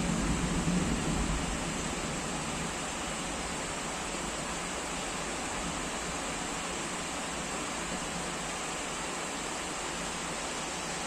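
Heavy rain falling steadily, a dense even hiss. A low rumble eases off in the first second or two.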